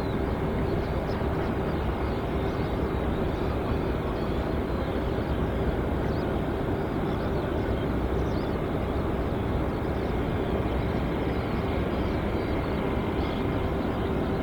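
Steady jet engine noise from a Boeing 747-400 on its landing approach: an even rumble with a constant hum, not rising or falling.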